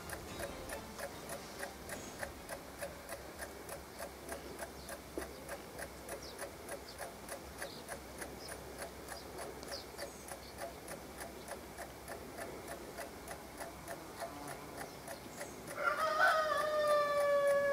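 Mechanical alarm clock ticking steadily and evenly. Near the end a louder, drawn-out tone with overtones comes in over the ticking.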